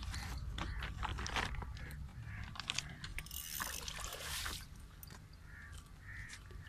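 Fishing reel being wound with rapid clicking. About three and a half seconds in, a hooked catfish thrashes and splashes at the water's surface for about a second.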